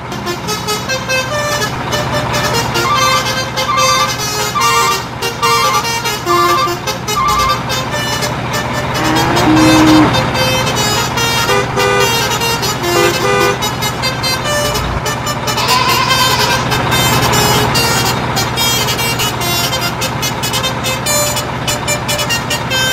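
Upbeat background music with a steady beat and short stepped melody notes, over a steady low hum.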